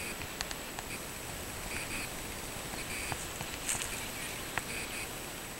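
Faint outdoor ambience over a steady hiss: short paired chirps repeating every second or so, with scattered light clicks.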